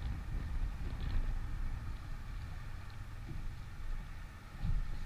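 Wind buffeting the microphone outdoors on a boat, an irregular low rumble, with a faint steady high hum underneath.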